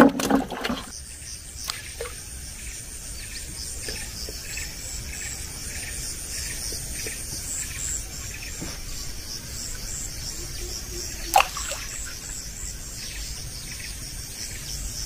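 A chorus of insects, crickets or cicadas, giving an even, high-pitched pulsing trill. A few knocks come near the start and one sharp knock about eleven seconds in.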